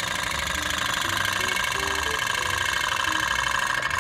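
Pop-pop steam engine of a tin toy Titanic running steadily, a fast, even putt-putt. The engine is warmed up, with its boiler at full pressure, and is purring as it drives the boat along.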